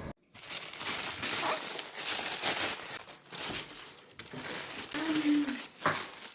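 Irregular rustling and crinkling, as of packaging or plastic being handled, starting just after a brief gap.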